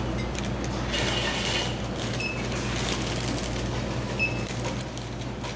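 Two short, high electronic checkout beeps, about two seconds in and again about four seconds in, over a steady hum and the background noise of a store.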